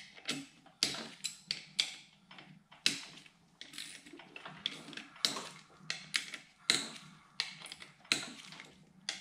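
Irregular sharp metallic clicks and clinks, about one or two a second, from hand tools and small parts as the clutch spring screws on the pressure plate of a 1993 Ducati 400SS wet clutch are worked loose.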